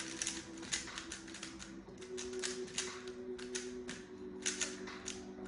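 Plastic Rubik's cube being turned rapidly in a speed-solve: a quick, uneven run of clicking turns, several a second, over soft background music with held notes.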